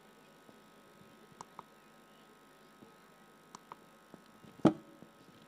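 A faint steady hum with a few small scattered clicks, and one loud sharp knock near the end.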